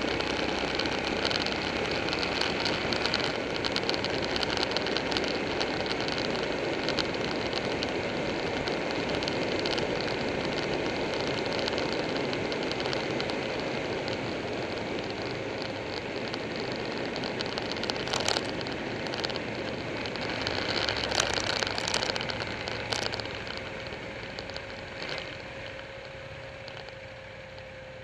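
Motorcycle running at road speed, heard from a camera mounted on the bike: a steady engine drone with rushing road and wind noise. A few sharp knocks come about two-thirds of the way through. The sound fades over the last few seconds as the bike slows.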